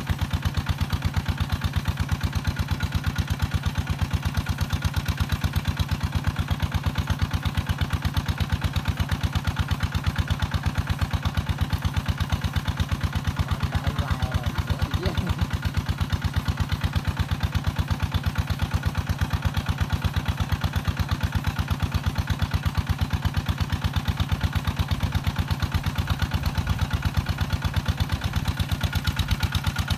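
Small water-pump engine running steadily with an even, rapid chug.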